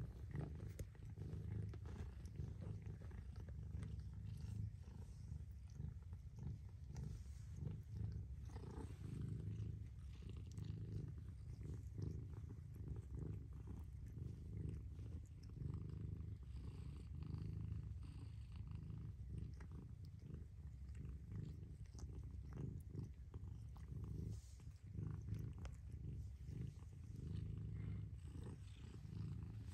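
Mother cat purring continuously while nursing her newborn kittens: a steady low rumble.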